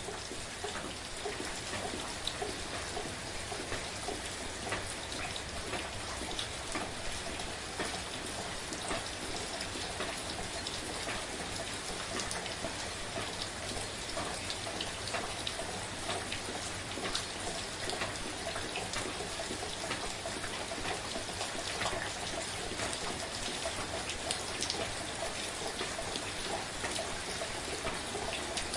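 Soft, steady rain falling, with many fine individual drop ticks over an even hiss.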